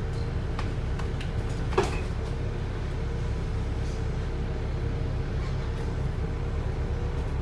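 Wright New Routemaster hybrid bus in motion, heard from the upper deck: a steady low drone of the diesel engine, which is running on diesel alone, with a faint wavering hum above it. A single sharp clunk about two seconds in.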